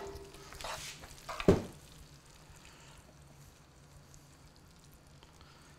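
A utensil stirring and scraping in a pan of creamy orzo carbonara, with a sharp knock against the pan about a second and a half in. After that there is only a faint low hum.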